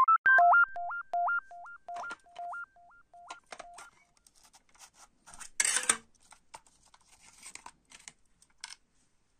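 A short electronic intro jingle of beeps stepping between a high and a low pitch, echoing away over the first few seconds. Then a clear plastic cassette case clicking and rattling as it is handled and opened, with one louder half-second scrape about five and a half seconds in.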